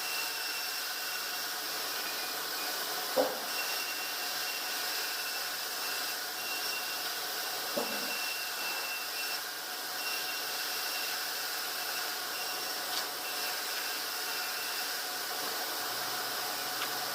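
Sawmill machinery running steadily, a hiss with a few steady whining tones over it, with a sharp knock about three seconds in and a lighter one near eight seconds.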